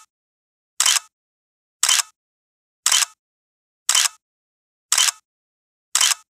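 Camera shutter clicks, about one a second, each a quick double click, with dead silence between them.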